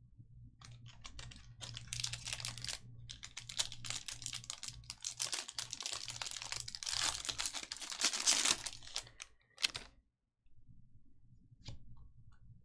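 Trading card packs being handled: foil wrappers torn and crinkled, with cards rustling and many quick clicks for about nine seconds. The sound stops, and a single click follows near the end.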